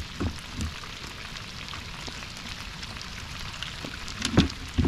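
Steady rain pattering on the surface of a river, an even hiss, with a couple of dull knocks a little past four seconds in.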